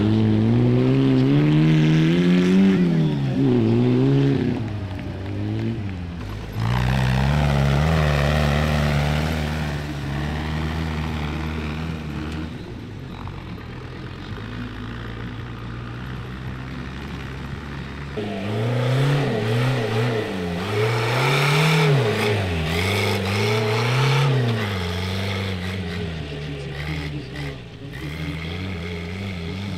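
Small tractor engines revving hard while labouring through deep mud, the engine note swinging up and down again and again. Through the middle stretch a steadier, lower engine note holds.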